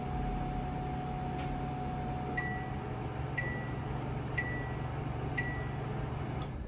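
Samsung MW7593G microwave oven running with a steady hum. A click comes about a second and a half in, then four short high beeps a second apart, the signal that the cook time has run out, and another click near the end.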